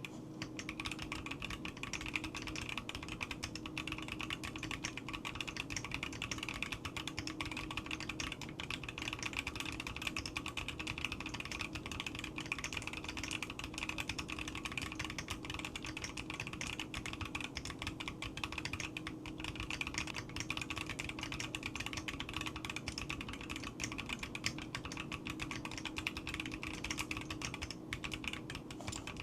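Continuous fast typing on a NEO65 mechanical keyboard with Haimu Joker switches and double-shot PBT keycaps: a dense, unbroken stream of key clacks.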